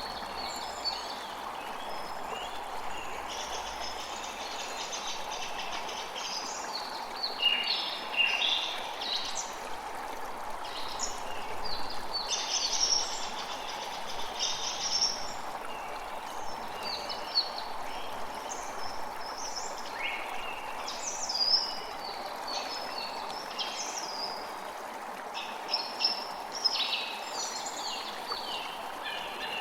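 Steady rush of flowing water, with birds chirping and trilling over it in short, irregular bouts.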